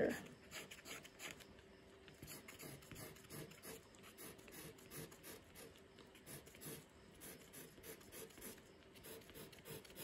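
Faint, irregular scratching of the flat end of a wooden barbecue skewer scraping oil pastel off paper in many short strokes, lightening the colour along a drawn branch.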